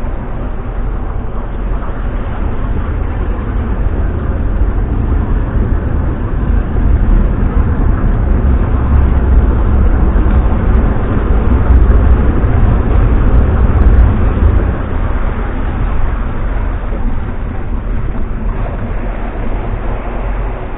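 Large motor yacht's diesel engines running with a steady low rumble as it manoeuvres through a turn, growing louder through the middle of the turn as the stern swings round, then easing off.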